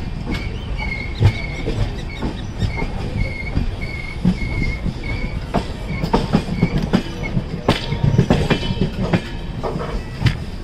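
Passenger train wheels clattering over rail joints and points as the train runs through a station approach. A high wheel squeal pulses about twice a second through the first half, and a run of sharp knocks comes in the second half.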